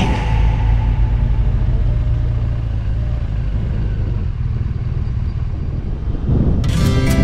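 Motorcycle engine running steadily on the move, a low rumble. Guitar music comes in near the end.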